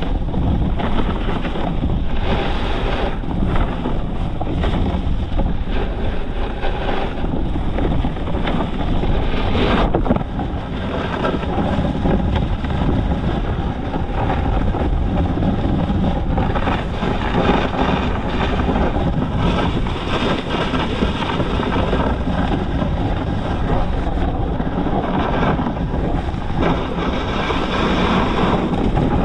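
Steady rushing noise of a snowboard sliding and scraping over groomed snow at speed, mixed with wind buffeting the GoPro's microphone.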